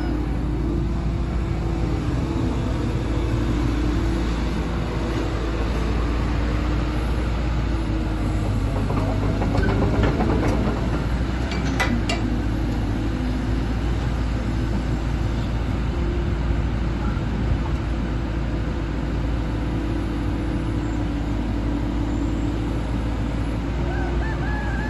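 Diesel engine of a CAT 312DL crawler excavator running steadily, with a few metallic clicks and knocks about ten seconds in.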